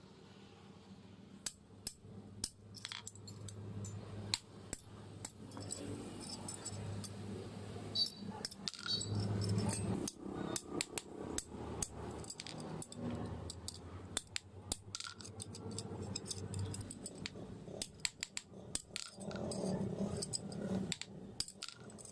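Irregular metallic clinking and light tapping, as metal tools and sheet-metal parts are handled and struck at a workbench, over a steady low hum.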